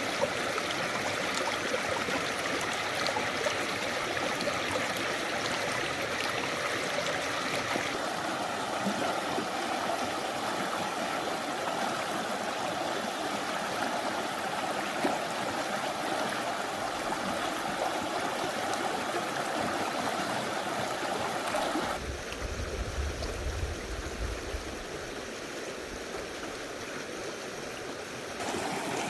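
Mountain valley stream rushing and gurgling over rocks, a steady water noise. About two-thirds of the way through it abruptly turns quieter for several seconds, with a brief low rumble, before the fuller rush returns near the end.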